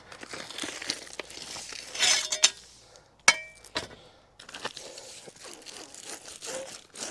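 Plastic water pipe and pull cable scraping and rustling as they are hauled through an underground duct, in uneven pulls. There is a sharp clink about three seconds in.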